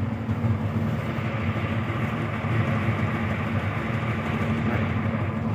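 Hyundai 215 excavator's diesel engine running steadily at idle, just after being started.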